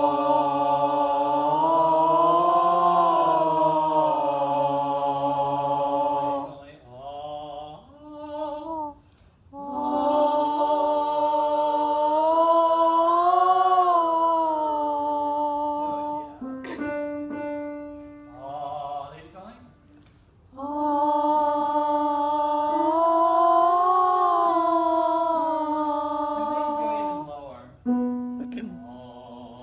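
Group of voices singing a long sustained "oh" vowel three times, each tone lasting about six seconds. The pitch rises a little in the middle of each tone and settles back, with short breaks between the tones.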